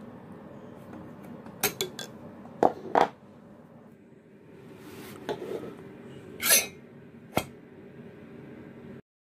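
Sharp metallic clinks and knocks of a Piaggio Ciao moped engine's piston, cylinder and hand tools being handled as the cylinder is fitted, about six in all, over a steady low hum. The sound cuts off abruptly near the end.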